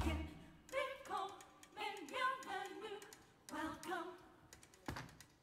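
Stage performers singing short vocal phrases with only sparse accompaniment: a low bass or drum hit at the start and a single sharp knock near the end.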